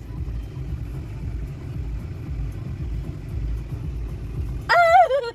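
A car idling, heard inside the cabin as a steady low rumble. Near the end there is a short, loud, wavering cry.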